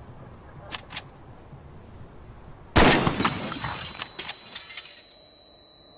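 Two sharp clicks, then a loud shotgun blast at a car with glass shattering and tinkling down for about two seconds. The sound then drops away to a steady high ringing tone.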